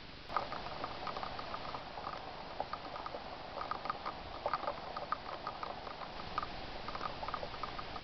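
Irregular light pattering of many small clicks and ticks, starting abruptly just after the start.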